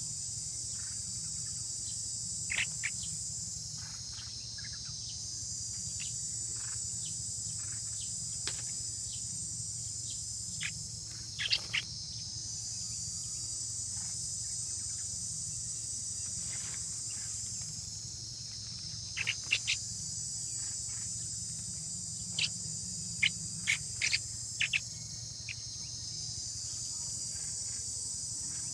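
A steady high-pitched insect chorus that swells and fades every six or seven seconds, with short, high bird chirps dotted through it, coming in small clusters, most of them in the second half.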